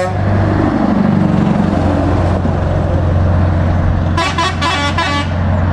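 Scania R-series truck's engine running steadily as it drives past, its pitch rising and falling in the first second or so. About four seconds in comes a quick string of about five short horn toots.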